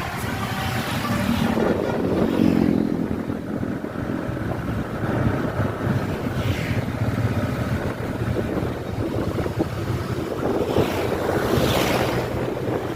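A bus engine running steadily, with wind rushing over the microphone. The rushing swells three times.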